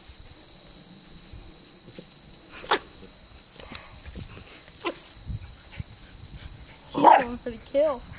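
A steady, high-pitched insect chorus trilling throughout, with a few short barks from a dog excited by a praying mantis; the loudest bark comes about seven seconds in, followed by another just after.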